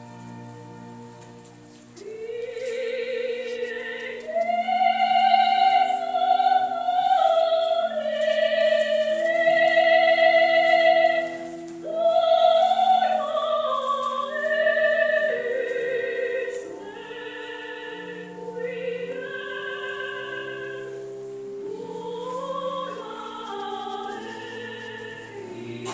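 Classical vocal music: a high, operatic soprano voice sings long held notes with vibrato over sustained accompaniment chords. The voice enters about two seconds in and grows softer in the second half.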